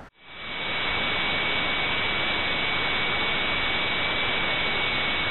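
Analog TV static hiss: a steady, even rush of noise with a thin high whine running through it, fading in over the first second.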